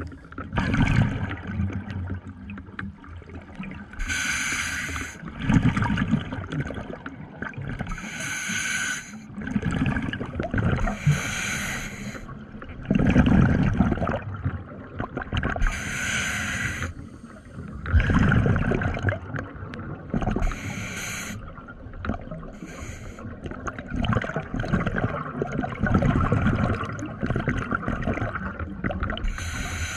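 Scuba diver breathing through a regulator underwater. A hissing inhale comes every three to five seconds, and each is followed by a low, gurgling rush of exhaled bubbles.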